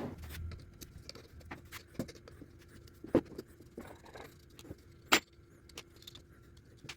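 Clicks, rattles and small knocks of plastic and metal fan parts being handled while an unplugged electric fan is taken apart, with two sharper knocks about three and five seconds in.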